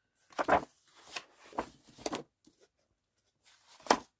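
Pages of a large, heavy art book being turned and handled: a few short papery rustles and swishes, the sharpest near the end.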